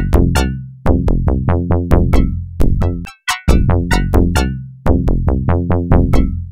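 Electronic background music: quick, sharply struck synth notes that die away, over a deep bass, with a brief break about three seconds in.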